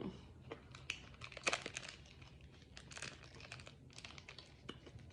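Snack packaging crinkling in short, irregular crackles, as a hand works in the bag.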